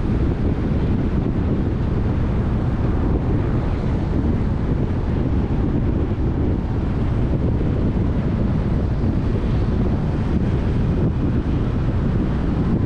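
Wind buffeting the microphone of a camera moving along a busy road, with motorbike and car traffic noise beneath: a steady, unbroken low rush.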